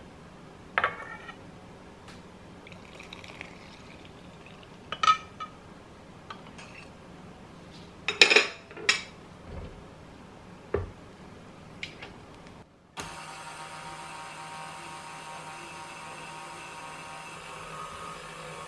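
Clinks and knocks of glass and metal as yeast water is poured from a glass bowl into a stainless steel mixer bowl, the loudest about 8 seconds in. About 13 seconds in, a KitchenAid stand mixer's motor switches on and runs with a steady whir on its lowest speed while the dough hook kneads flour and water.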